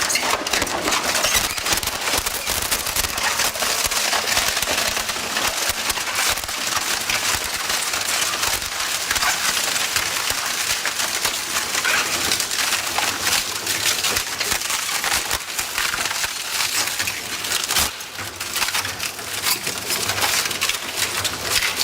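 WEIMA Vampire 1300 single-shaft shredder chewing up wood: a dense, continuous crackle of splintering and snapping wood, with a brief lull about 18 seconds in.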